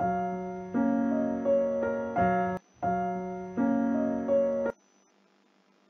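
A short electronic keyboard tune of held notes, the same phrase played twice, stopping abruptly a little before five seconds in.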